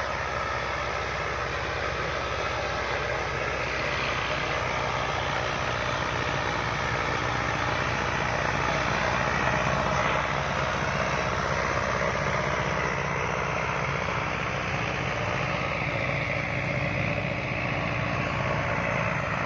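Diesel tractor engine running steadily under load while pulling a wide disc harrow through tilled soil, a little louder about halfway through.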